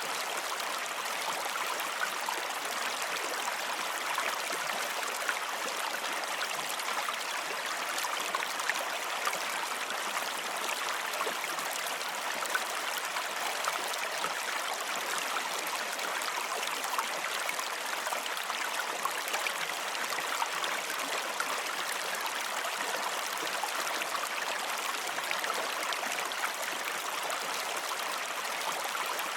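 Running water flowing steadily: a constant even rush with many small splashes.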